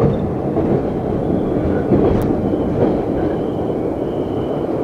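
Inside a moving MBTA Orange Line subway car (Hawker Siddeley 01200 series): the steady rumble of wheels on rail and car body. There is one sharp click about two seconds in, and a faint high whine joins about halfway through.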